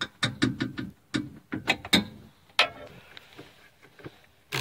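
A quick, uneven run of sharp metallic clicks and knocks, about six a second for the first two seconds, then a few scattered ones: hand tools working on a Jeep's rear tail-light and bumper fittings.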